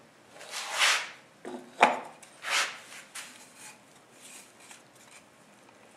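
Wooden bowl parts being handled: a few rubbing swishes and one sharp wooden knock about two seconds in, as a glued ring of segments is set against the turned base disc.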